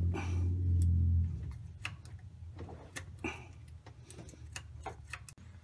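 A hand gasket scraper's blade scraping old gasket material off the water pump mounting surface of a truck engine: irregular short scrapes and clicks. A low hum sounds in the first second or so.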